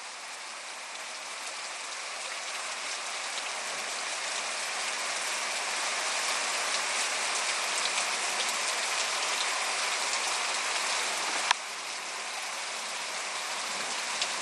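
Heavy rain pouring steadily, slowly growing louder. A single sharp click late on.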